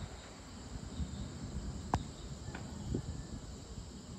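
Crickets chirring steadily in the evening over a low rumble, with a single sharp click about two seconds in.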